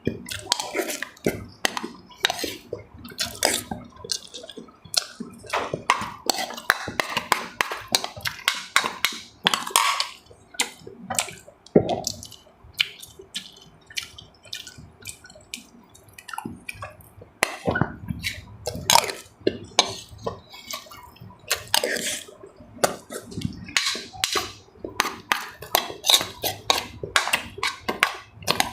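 Close-miked eating: wet chewing and slurping of food, with many sharp clicks of utensils against dishes.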